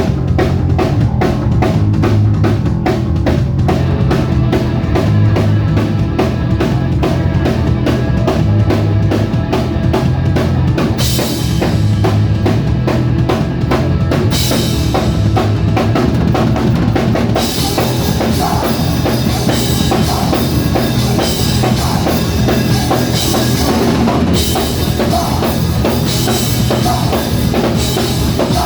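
Music with a drum kit keeping a fast, steady beat over a bass line; the cymbals and hi-hat fill in more from about eleven seconds in.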